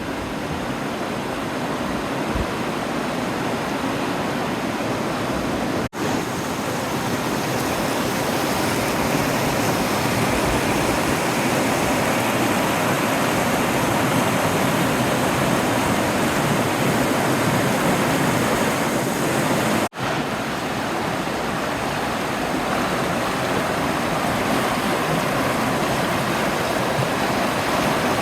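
Creek swollen with spring snowmelt runoff, rushing water running loud and steady. It breaks off for an instant twice, about six and twenty seconds in.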